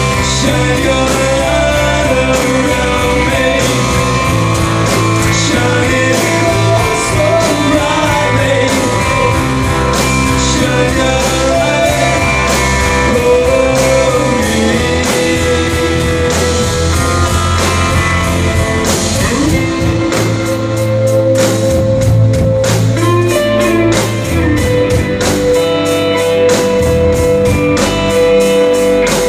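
Recorded rock song in a guitar-led instrumental stretch between sung lines, with bass, and a steady drumbeat that comes through more clearly in the last third.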